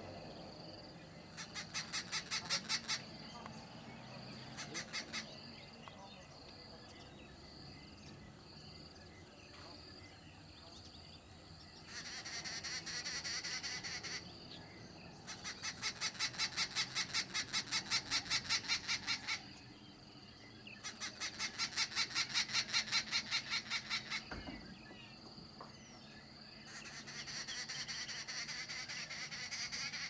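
Arrow-marked babbler calling in bouts of rapidly repeated chattering notes, each bout lasting a second or two up to about four seconds, six bouts with short pauses between them.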